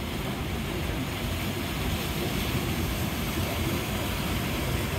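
Steady rushing and churning of water pouring through an artificial standing surf wave, a constant low rumble.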